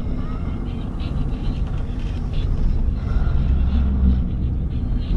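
Loud, low, rumbling snoring, with one stronger snore about three and a half seconds in.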